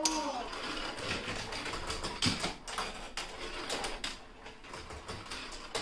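Marbles rolling and clattering down a 3D-printed magnetic marble-run track, with many quick clicks and knocks as they run through the track pieces.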